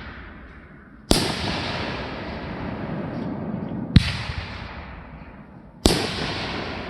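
Fireworks going off: three sharp bangs, about a second in, at four seconds and near the end, each trailing off in a long fading tail.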